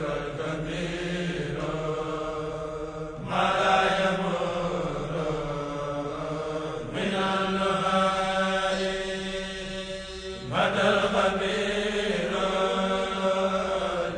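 Chanting of an Arabic devotional poem in long, drawn-out phrases over a steady low held tone. A new phrase starts louder about every three to four seconds.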